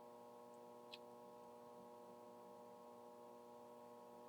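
Near silence: a faint steady hum, with one small tick about a second in.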